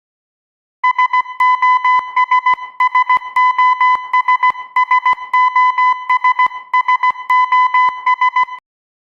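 Electronic beep sound effect: one steady high tone keyed on and off rapidly in an irregular run of short and longer beeps, like a Morse code signal, starting about a second in and stopping shortly before the end.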